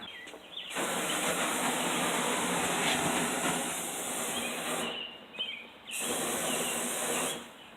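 Homemade flamethrower firing with a loud, steady hiss in two blasts: one of about four seconds, then after a short pause a second of about a second and a half.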